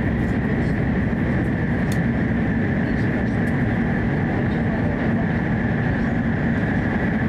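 Steady running noise heard inside a Hokuriku Shinkansen E7/W7-series car: a dense, even rumble with a faint steady high whine above it.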